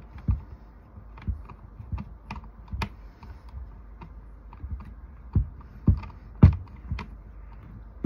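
Irregular small clicks and knocks of a T-handle Torx driver turning in a screw in the plastic base of an Echo CS2511TES top-handle chainsaw, tightening the bolt that anchors a new wrap handle spring. A few louder knocks come past the middle.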